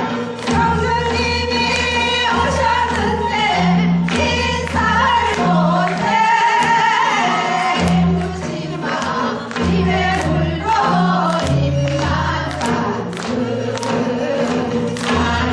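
Music with voices singing together over a stepping bass line and regular drum hits.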